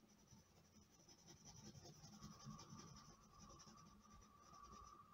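Faint scratching of a thin wooden stick scraping the dark top layer of oil pastel off paper, the sgraffito technique.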